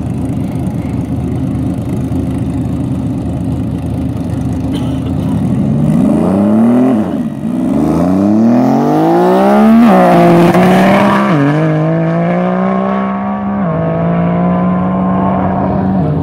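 Tuned Nissan R35 GT-R's twin-turbo V6 holding a steady note at the start line. About six seconds in the revs rise and it launches hard, the engine note climbing and dropping back at each of several gear changes as it pulls away.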